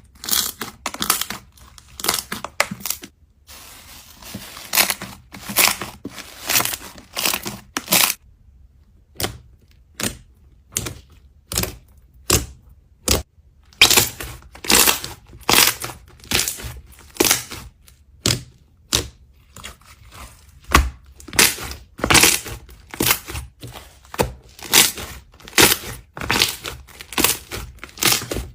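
Slime being worked by hand, giving a string of short sharp crackles and pops about one or two a second, with a brief break about eight seconds in.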